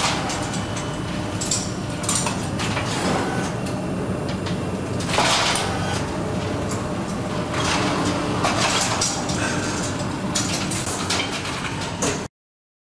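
Work-floor background noise: irregular knocks, clatter and scraping over a steady machine hum, cutting off abruptly near the end.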